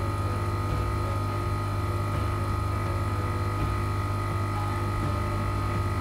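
Arissto Happymaker 2.0 capsule coffee machine running its first-use rinse cycle, its pump drawing water from the tank with a steady hum and a faint high tone, before any water comes out of the spout.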